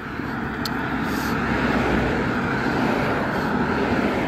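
A car driving past on the road, its tyre and engine noise swelling to a peak through the middle and easing off near the end.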